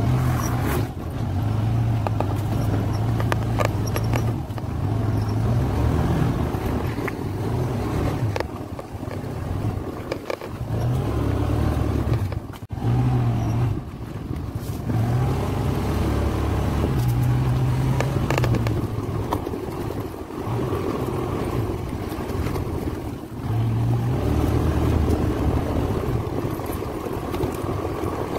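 Motor scooter engine running under way over a dirt track, its note swelling and easing with the throttle, with occasional knocks and rattles from bumps.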